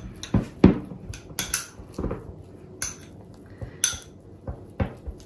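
Metal spoon stirring a thick filling in a small glass bowl, with irregular clinks and scrapes against the glass, the sharpest about two-thirds of a second in.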